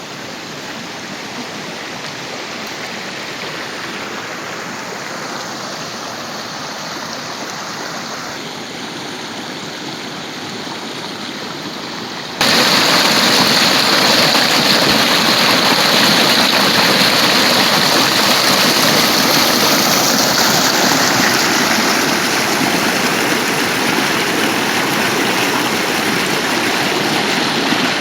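Rushing water of a stream or waterfall, a steady hiss and rumble; about halfway through it jumps suddenly louder and stays loud.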